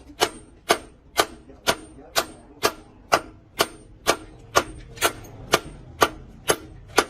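Hammer striking metal in a steady, even rhythm, about two blows a second, each blow with a short bright ring.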